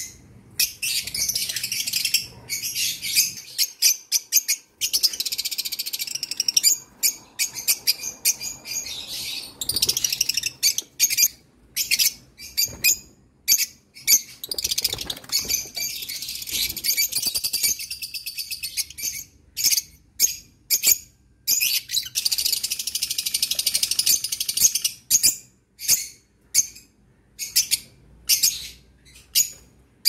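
Hawk-headed parrot (red-fan parrot) chicks calling: a rapid series of harsh, high-pitched calls, some short and some drawn out over a second or two.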